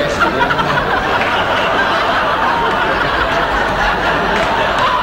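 Studio audience laughing steadily.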